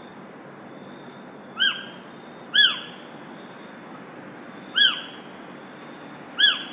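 A bird giving four short, loud calls, each a single note that rises and falls, at uneven gaps. Under them runs a steady hiss with a faint, steady high tone.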